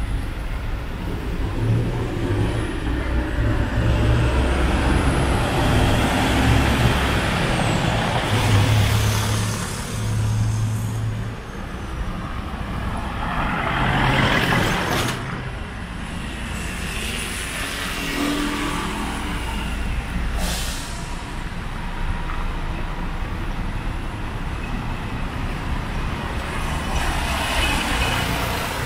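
Road traffic: motor vehicles passing close by over a steady engine rumble, with several passing swells and a couple of short hisses.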